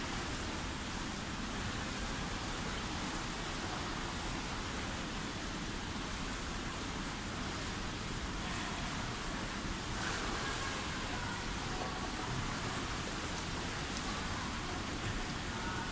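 Indoor swimming pool ambience: a steady wash of noise from swimmers splashing through the water in the lanes.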